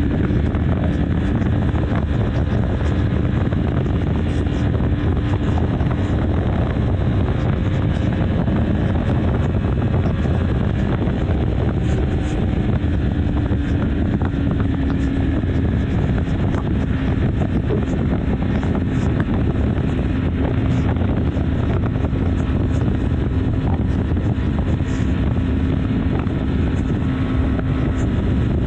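BMW G310 R's single-cylinder engine running at a steady highway cruise, its tone holding even, mixed with wind rushing over the microphone and road noise.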